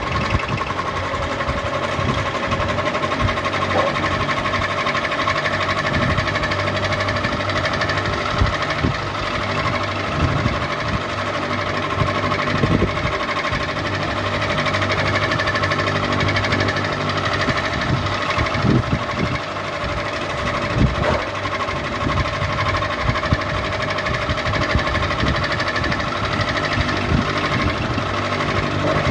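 Ceiling fan running: a steady motor hum with several held whining tones, over an uneven mechanical rattle with occasional sharper knocks.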